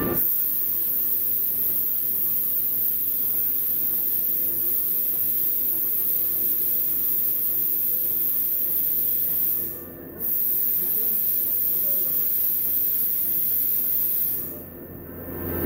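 Compressed air hissing steadily as a stretched tire is inflated on a tire-changer machine, cutting off briefly about ten seconds in and again near the end.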